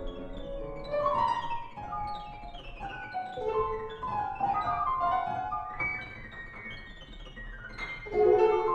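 Amplified grand piano playing scattered short notes that ring and fade, mixed with electronic playback through loudspeakers, with a louder cluster of notes near the end.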